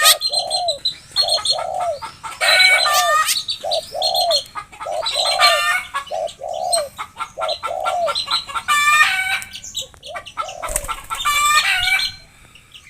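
Birds calling: a run of short, low, arched notes about two or three a second, with higher chattering calls breaking in every second or two, all going quieter near the end.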